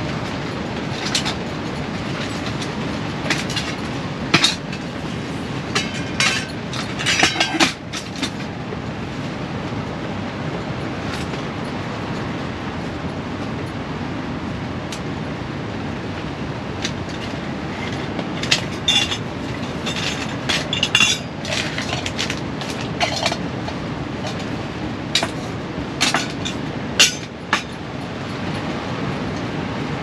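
Steady low rush of storm wind and rain against the tent walls. Over it come clusters of clicks and knocks as camping gear, a cook pot and gas canisters among it, is handled and set down on a folding camp table, in the first eight seconds and again for about ten seconds past the middle.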